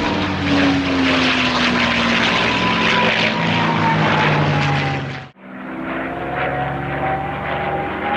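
Piston-engined World War II propeller aircraft running, its engine note slowly falling in pitch as it passes. The sound cuts out sharply a little over five seconds in and comes back with the engine note slowly rising.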